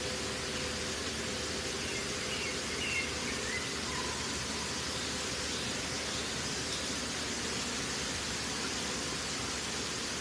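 Water spilling over a small concrete weir, a steady even rush with no breaks.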